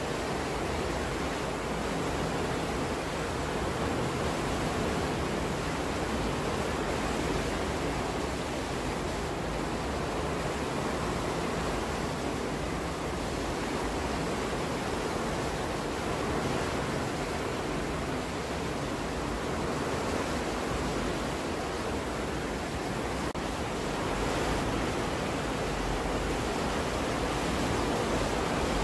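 Water rushing and churning through the sluices of a lock gate as the water levels are equalized: a steady, even rushing.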